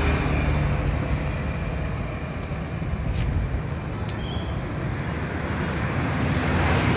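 Street traffic: motor vehicles, motorcycles among them, running past, their engine drone fading in the middle and rising again near the end. Two faint light clicks come about three and four seconds in.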